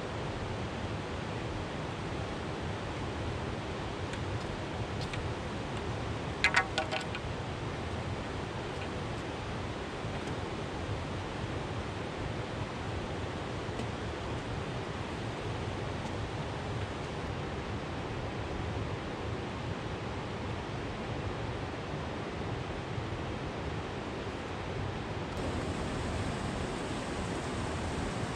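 Steady rush of river water running over rocks. About six and a half seconds in, a quick run of several sharp, high notes cuts through, the loudest thing heard, and the rush grows a little louder near the end.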